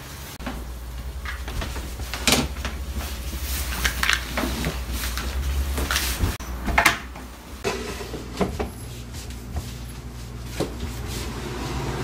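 Several sharp knocks and bumps between about two and seven seconds in as an Iris Ohyama 231-litre refrigerator is shifted and set into place on a floor mat, over a low steady rumble.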